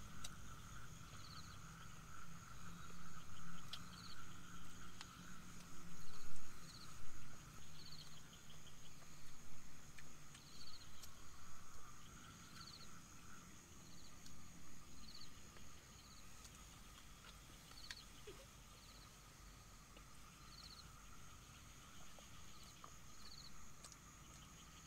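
Night-time chorus of crickets and other insects: a steady high trill with short pulsed chirps repeating about once a second. Scattered small clicks and clinks of a spoon against a cup during eating, mostly in the first half.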